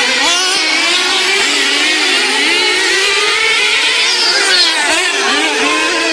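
Several racing vehicle engines running at once, their pitches rising and falling as they rev and ease off.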